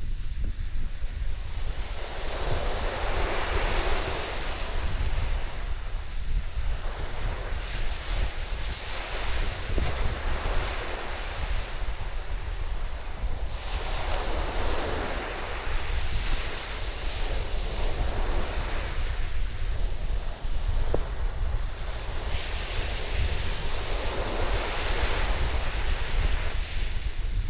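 Surf breaking and washing up a sandy beach, swelling and fading every five or six seconds, over a steady low rumble of wind buffeting the microphone.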